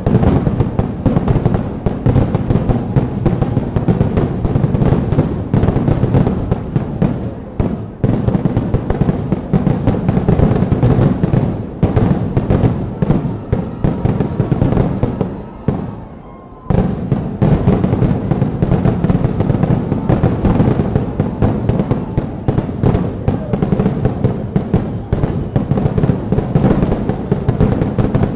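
Kerala temple fireworks (vedikattu) going off in a dense, continuous barrage of rapid bangs. There is a brief lull about sixteen seconds in, then the barrage resumes.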